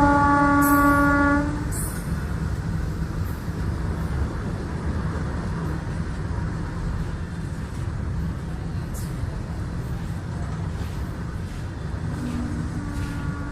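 Train sound effect: a train horn sounding and cutting off about a second and a half in, then the steady low rumble of the train on the rails, with a lower two-note horn starting again near the end.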